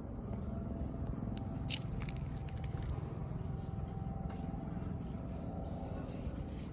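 Steady low outdoor background rumble, with a few short faint clicks about two seconds in.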